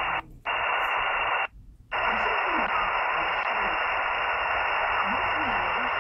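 Shortwave receiver audio from an SDR app on a Samsung Galaxy Note: steady band-noise hiss with nothing clear coming through, cutting out twice for a moment in the first two seconds.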